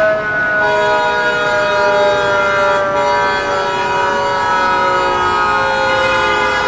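Fire truck siren sounding a long, held wail that slowly falls in pitch.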